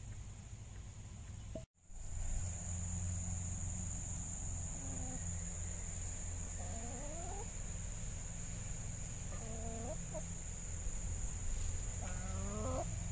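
Hens calling with short clucking calls that bend up and down in pitch, about four calls a couple of seconds apart, the last near the end. Underneath runs a steady high insect drone.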